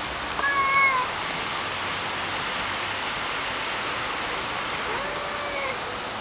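Tabby tomcats in a territorial standoff yowling: a drawn-out threat call about half a second in, the loudest sound, and a second, lower call near the end, over a steady background hiss.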